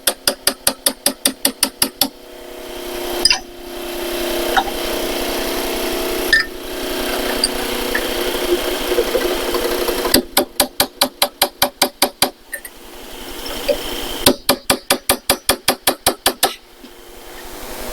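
Hammer tapping a chisel against the rivets of a small metal cabinet lock: three runs of quick, sharp metallic strikes, about six a second. A steady hum fills the gaps between the runs.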